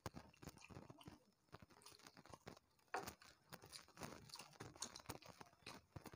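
Faint, irregular chewing of people eating rice and fish curry by hand, with soft clicks of fingers mixing rice on ceramic plates.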